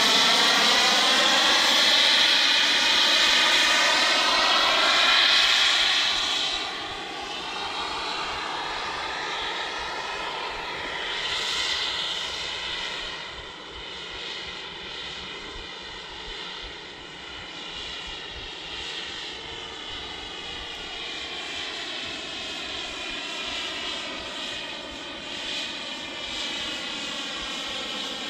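Turbine jet engine of a 1:8 radio-controlled F-35B model in flight: a steady jet whine and rush whose tone sweeps and shifts as the plane moves. It is loudest for the first six seconds, then fainter as it flies off, swells briefly about twelve seconds in, and builds again toward the end.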